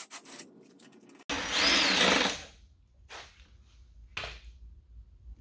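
Cordless power driver with a 15 mm socket spinning out a bumper mounting bolt in one steady burst of about a second. A few light clicks follow.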